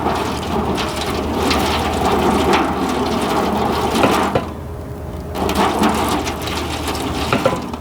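Water being poured into a smoker's water pan, splashing steadily, with a short break a little past halfway.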